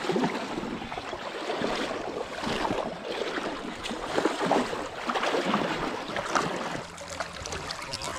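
River water splashing irregularly in the shallows as a chinook salmon thrashes at the surface, over the steady wash of the current.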